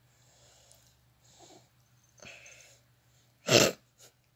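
A cat close to the microphone: a few soft breathy sounds, then one short, loud burst of breath about three and a half seconds in, with a smaller puff just after.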